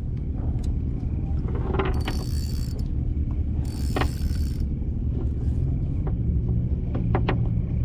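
A steady low engine rumble, with scattered small clicks and two short hissing bursts about two and four seconds in.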